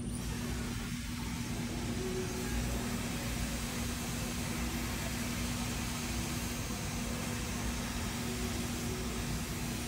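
A blower motor running steadily: a constant rush of air with a low, even hum underneath.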